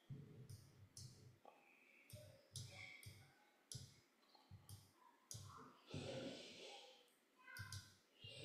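Faint, irregular clicks of a computer mouse and its scroll wheel, a few per second, with a short soft hiss about six seconds in.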